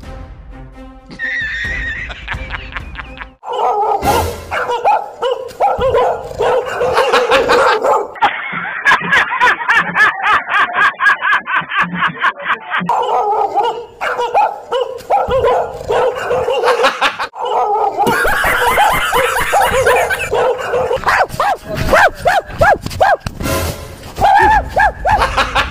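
Dog barking and snarling, a fake recorded bark played aloud. It comes in long, loud runs separated by short gaps, over background music.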